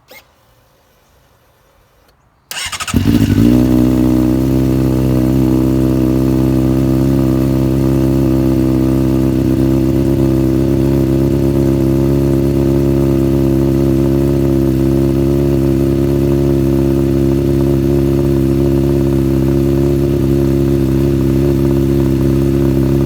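Honda CBR600RR inline-four started through a Dan Moto carbon fibre slip-on exhaust, catching about two and a half seconds in after a single click. It flares briefly, then settles into a steady idle.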